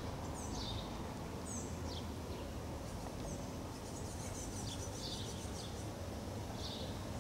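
Sparrows chirping: short, falling chirps at irregular intervals about every second, over a steady low background rumble.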